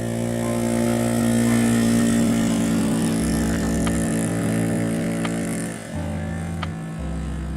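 Honda Benly CD50S's small air-cooled four-stroke single-cylinder engine running steadily, a little quieter from about six seconds in.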